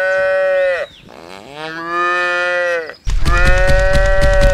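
Cow mooing: long, drawn-out moos, the end of one, then a second, then a third starting about three seconds in with a low, rapid rattling rumble under it.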